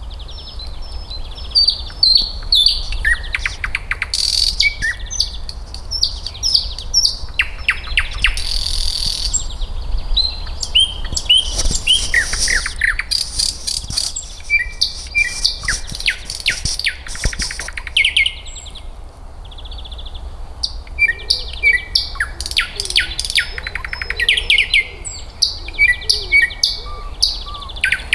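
Thrush nightingale singing loudly in varied phrases: runs of rapid dry clicks and rattles alternate with clear whistled notes, with a short pause in the song about two-thirds of the way through.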